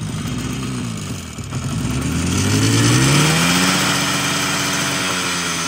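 IZh Jupiter 5 motorcycle's two-stroke twin-cylinder engine running: the revs sink low, then it is revved up about a second and a half in and held at a higher, steady speed.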